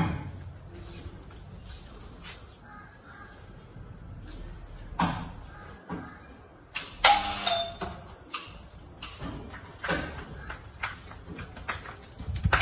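Sharp knocks and clanks from a metal pergola frame as a gardener works on top of it cutting back creepers. The loudest clang comes about seven seconds in and leaves a thin metallic ringing for a few seconds, with lighter knocks before and after.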